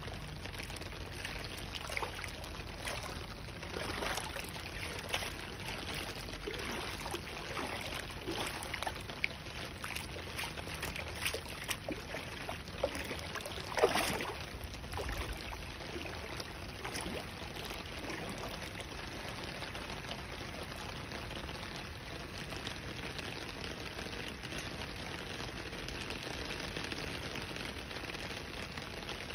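Heavy rain falling and splashing onto standing floodwater: a steady rush of water broken by irregular louder splashes in the first half, the loudest about fourteen seconds in.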